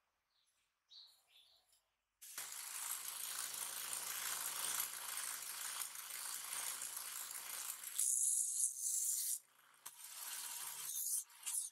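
Bench belt sander running with a low motor hum while a small metal blow torch part is held against the abrasive belt, giving a steady sanding hiss. The hiss comes in suddenly about two seconds in, grows louder and higher about eight seconds in as the part bears harder on the belt, and breaks off briefly near the end.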